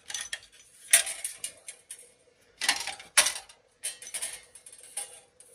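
A screwdriver jabbing and prying at the perforated end plate of a copper-aluminium radiator held in a vise, making a run of metal clinks and scrapes. The sharpest knocks come about a second in and again after three seconds.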